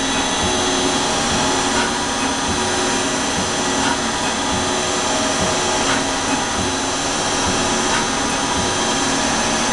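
Tsugami PL3 CNC gang tool lathe running a dry rough-turning cycle: steady spindle and drive whine with several constant tones over a dense cutting noise, and a faint tick about every two seconds.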